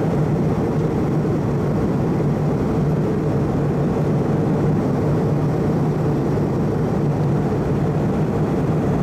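Steady in-flight cabin noise of an Airbus A320 airliner: the even drone of the engines and the rush of air past the fuselage, with a constant low hum underneath.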